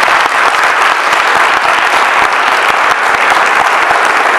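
Audience applauding, steady and loud, at the close of a speech.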